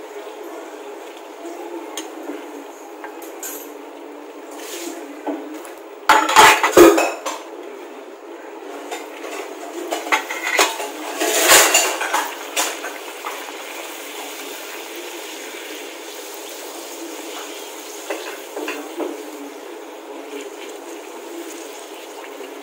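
A steel slotted spoon clattering against an iron kadhai as puris are deep-fried, over a steady sizzle of hot oil. The loudest clattering comes about six seconds in and again around eleven seconds in.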